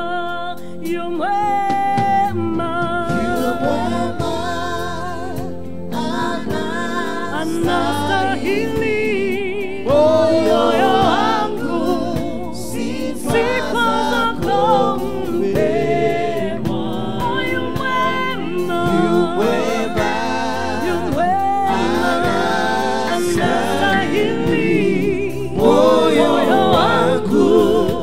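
Live gospel worship song: a woman's lead voice, held and wavering on long notes, with backing singers joining, over a live band with keyboard and drums.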